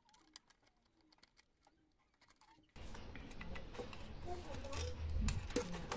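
Faint small clicks of a screwdriver working the screws of an amplifier's back panel. About halfway through the background suddenly gets louder, and a run of sharp clicks and rustling follows as the amplifier board is handled and lifted out of its subwoofer enclosure.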